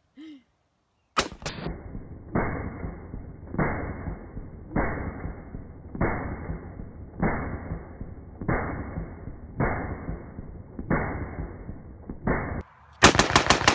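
Rifle fire: a sharp shot about a second in, then about nine deep, drawn-out booms with the treble cut off, evenly spaced about a second and a quarter apart, as in slowed-down audio of rapid fire. Near the end comes a fast string of full-speed shots, about eight a second.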